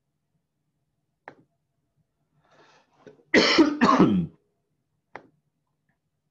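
A man coughs loudly twice in quick succession, with a short click about a second before and another about a second after.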